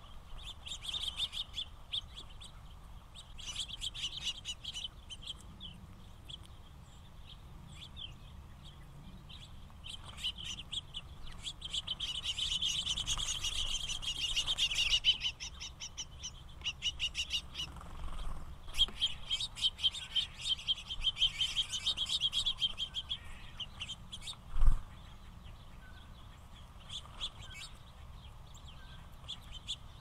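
House finches chirping and twittering at a seed feeder in quick runs of high notes, densest and longest through the middle. A single sharp knock about two-thirds of the way through is the loudest sound.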